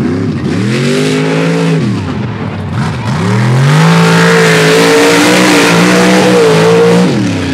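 Lifted mud truck's engine revs up and eases off, then climbs again and is held at high revs for about three seconds, dropping off near the end. While it is held high, the big tyres spin and fling dirt with a steady hiss.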